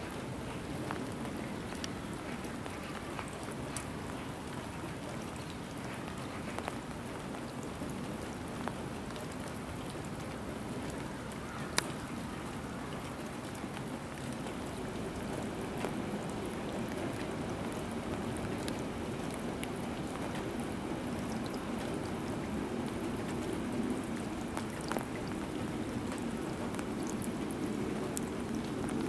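Steady rain falling on wet tarmac, with scattered sharp drips and taps.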